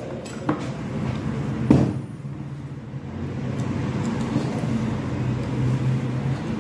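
Two sharp clicks from pliers working a wire, the second louder, then a steady low motor hum that sets in a little after halfway.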